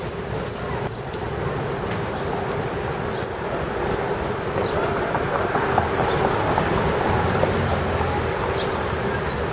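City street traffic and wind rumble heard while riding along a bike lane: a steady noisy roar with a low hum, slightly louder around the middle, and a faint regular high ticking several times a second.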